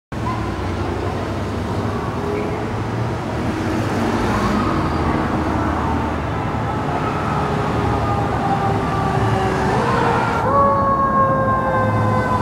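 Emergency vehicle's siren sounding a slow wail over loud engine and road noise; a little past ten seconds in the siren's tone jumps higher and then slowly falls.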